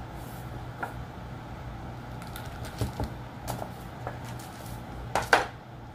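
Hands and a metal spatula tool working sculpting wax on a board: scattered small taps and knocks, with a louder clatter of clicks about five seconds in. A steady low hum lies underneath.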